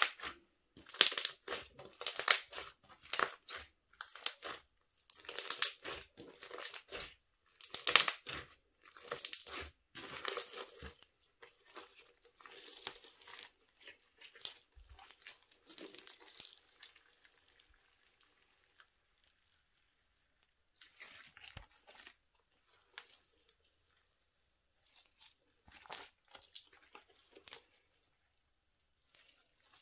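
Hands squeezing and kneading a sticky, bead-filled glitter slime: crackly, squelching pops with each squeeze, loud and close together for the first ten seconds or so. Then fainter crackles as the slime is stretched out, with a near-silent stretch in between.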